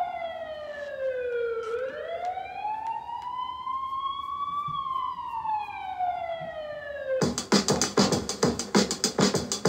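Siren sample in a hip-hop track: a slow wailing siren glides down, up and down again, then cuts off as a drum beat starts about seven seconds in.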